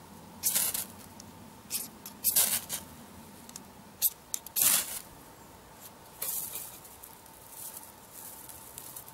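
A striker scraped down a ferrocerium fire steel in six or so sharp strokes, throwing sparks onto a bundle of dry fern tinder, which takes the spark.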